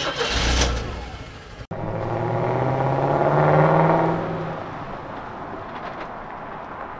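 Car engine revving sound effect. A loud burst first, a sudden break a little under two seconds in, then an engine note that climbs steadily in pitch, swells and fades away.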